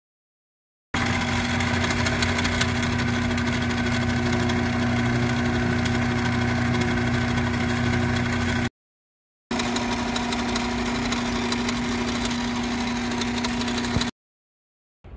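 Metal lathe running with a twist drill in the tailstock chuck boring an 8.5 mm hole into an aluminium bar: a steady motor hum with cutting noise over it. It is heard in two stretches that start and stop abruptly at edits, with dead silence before, between and after.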